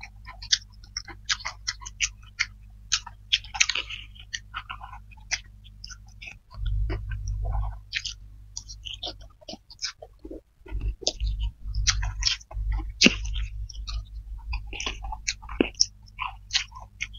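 Close-up wet chewing, lip smacking and noodle slurping of two people eating flat rice noodles and fried eggs, with quick irregular smacks throughout. A low rumble comes and goes in the middle.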